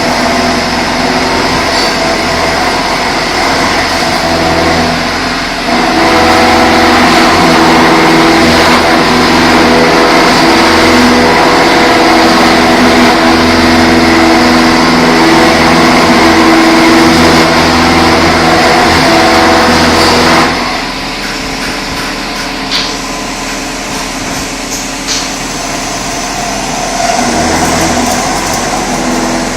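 Vertical machining center milling a pocket: the spindle and end mill cut steadily with a loud, even machining noise that carries several held tones. About twenty seconds in, the cutting noise drops suddenly to a quieter steady machine hum with a few light clicks.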